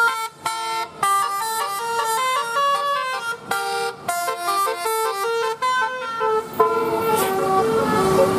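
Multi-tone 'telolet' bus horn playing a fast tune of short stepped notes, several horn tones sounding at once. A steady noise swells up under the horn about six and a half seconds in.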